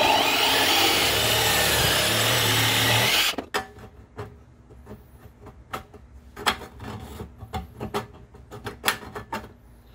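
DeWalt reciprocating saw cutting lumpy old welds off a metal exhaust pipe. It runs for about three seconds and then stops abruptly, followed by scattered light clinks and knocks as the pipe and muffler are handled.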